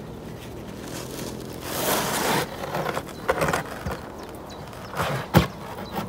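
Plywood concrete form being pulled off a set concrete pier pad. A wooden scrape comes about two seconds in, then several hard wooden knocks, the loudest just before the end.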